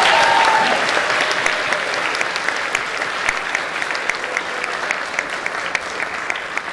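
Audience applauding, loudest at the start and slowly dying away. A held musical note ends under the clapping in the first second.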